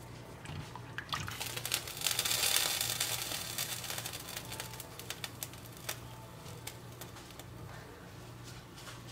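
A silicone spatula stirring rice in water in an enamelled cast-iron pot: liquid sloshing and hissing, loudest from about two to three and a half seconds in, with scattered light taps and scrapes of the spatula against the pot.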